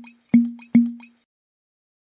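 Two short pop sound effects about 0.4 s apart, each a sharp knock with a low tone dying away. They mark quiz answer options popping onto the screen.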